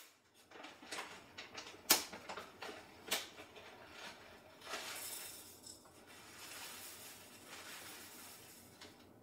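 A bag of rolled oats crinkling and rustling as it is handled, with a few sharp clicks, then a soft steady hiss of the dry oats pouring into a glass bowl.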